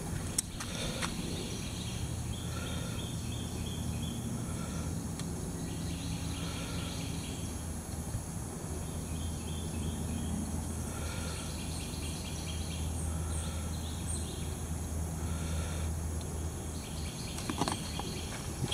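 A bird calling a short phrase about every two seconds over a steady low outdoor hum.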